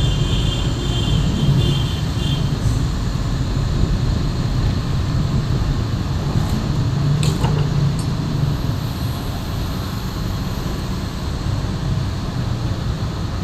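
Steady low rumble of heavy diesel vehicle engines, with a faint high tone that stops about two and a half seconds in.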